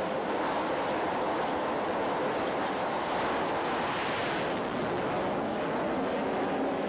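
Carrier jet aircraft at full power through a catapult launch and climb-out, heard as a steady rushing noise that grows a little brighter about four seconds in as the jet passes close.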